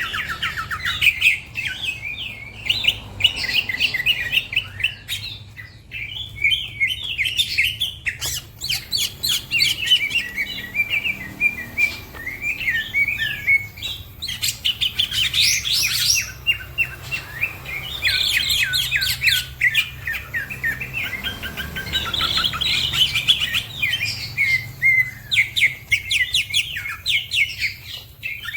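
Cucak ijo (green leafbird) singing fast and almost without pause: rapid chirps, trills and short whistled phrases.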